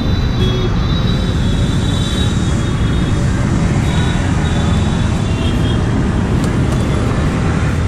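Steady rumble of busy city road traffic, with a few light clicks as a key is worked in a scooter's ignition switch.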